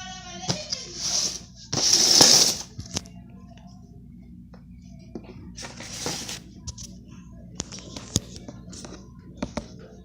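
Handling noise from slime-making materials: scattered clicks and knocks, with a loud hissing rustle about two seconds in and a weaker one near six seconds.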